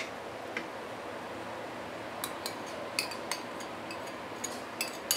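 Light clicks and ringing clinks of a wooden spatula and a small ceramic bowl knocking against a nonstick wok while starch solution is poured into simmered chicken stew to thicken the sauce. A couple of single taps come first, then a quicker run of clinks from about two seconds in, over a faint steady hiss.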